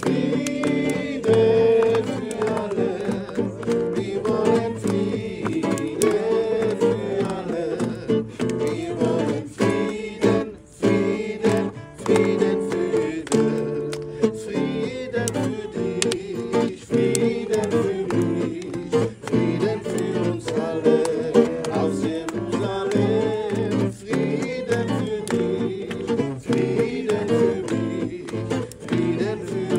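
Worship song sung by a group to strummed acoustic guitar.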